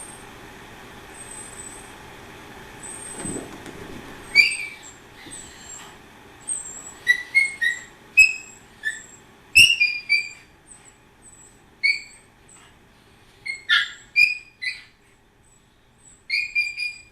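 Miniature pinscher whining and yipping in short, high-pitched squeaks, over a dozen from about four seconds in, as it gets excited chasing a laser pointer dot.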